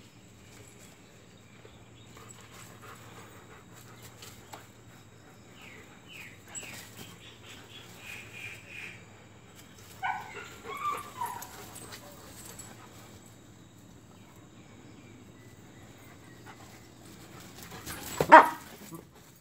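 Dogs whining and yipping in short high-pitched runs during play, a first cluster about six seconds in and a louder one around ten seconds; a single loud bark near the end.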